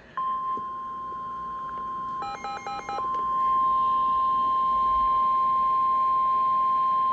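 The 1050 Hz warning alarm tone of a NOAA Weather Radio alert: one steady, unbroken high tone that gets louder about three seconds in. It signals a severe thunderstorm warning about to be read. Around two seconds in, a quick run of about five short beeps sounds over it.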